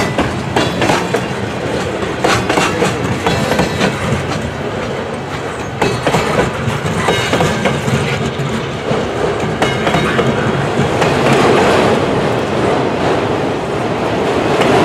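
Freight cars of a mixed manifest freight train rolling past, wheels clicking over rail joints, getting louder near the end.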